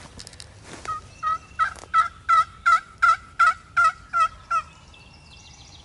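A run of about ten hen-turkey yelps from a hunter's turkey call, evenly spaced at about three a second, each note breaking downward. This is calling meant to bring a passing gobbler back.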